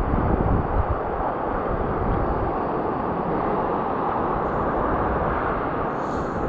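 Steady rushing noise of wind buffeting the microphone, with ocean surf behind it.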